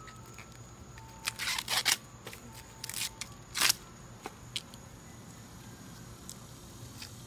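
Green husks being ripped off an ear of fresh corn by hand: a run of short, crisp tearing rips in the first few seconds, then a few fainter snaps.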